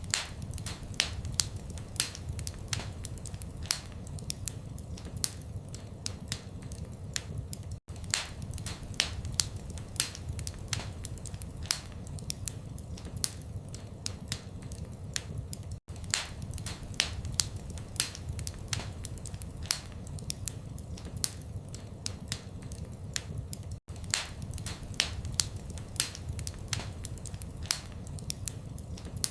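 Fireplace wood fire crackling: frequent sharp pops and snaps at irregular spacing over a steady low rumble of the flames. The sound cuts out for an instant three times, about eight seconds apart.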